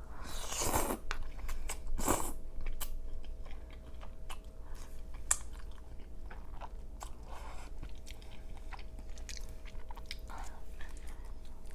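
Close-miked chewing of crawfish pasta: wet mouth clicks and smacks, louder in the first two seconds, then softer steady chewing.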